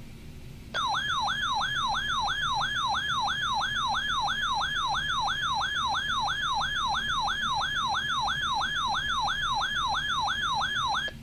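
Weather alert radio sounding its alarm siren for a weather warning: a loud warbling tone, about three falling sweeps a second, that starts suddenly under a second in and cuts off just before the end.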